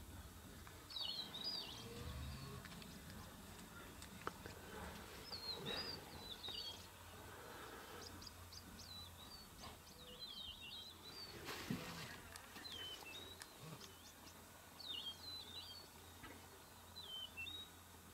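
A songbird singing a short, warbling high phrase, repeated about every two to four seconds, over a faint low hum.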